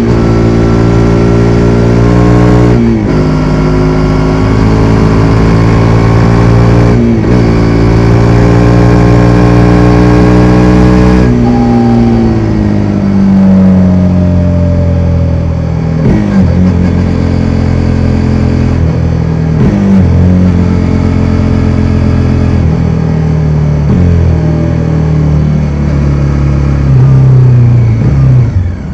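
Bajaj Dominar 400's single-cylinder engine pulling under load while riding, with brief interruptions about 3, 7 and 11 seconds in as gears change; after that the engine note falls in a series of steps with short blips, as the bike slows and shifts down.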